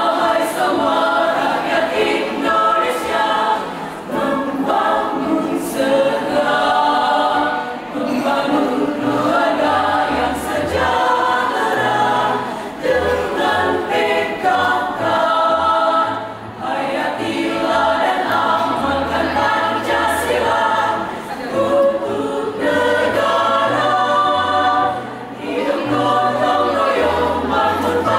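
Choir singing a PKK march song in several parts, phrase after phrase with brief breaths between.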